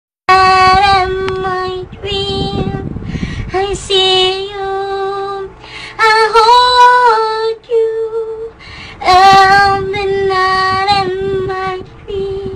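Music: a high-pitched voice singing held, sliding notes over a backing track with a beat.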